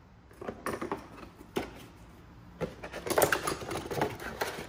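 Cardboard wrench-set box being opened and handled: irregular scraping, rustling and light knocks of the flaps and inner sleeve, sparse at first and busier over the second half.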